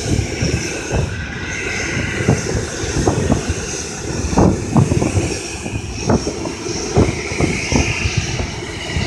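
Airbus A320-family jet airliner on final approach, its engines a steady distant rumble with a hiss above it, and irregular low thumps throughout.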